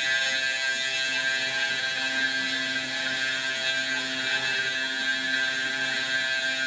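Eleksmill desktop CNC mill cutting: the spindle motor whines steadily while the end mill bites into the workpiece with a continuous hiss. A lower drone comes and goes as the machine moves.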